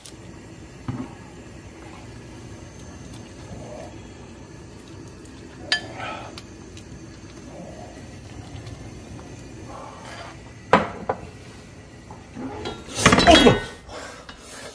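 Metal ladle clinking and scraping against a stainless steel pan and a ceramic bowl as soup is ladled out, with a few separate clinks and a louder clatter near the end, over a steady low background noise.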